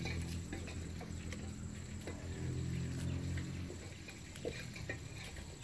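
A steady low engine-like drone that fades away a little past halfway, with faint small snaps of leafy okra stems being picked apart by hand.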